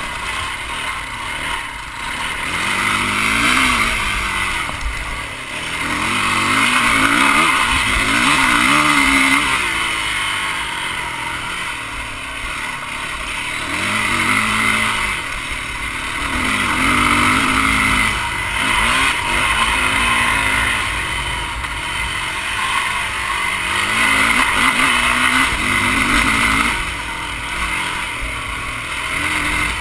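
Yamaha dirt bike engine running under load on a dirt trail, its pitch rising and falling every few seconds as the throttle opens and closes, with wind rushing over a helmet-mounted camera.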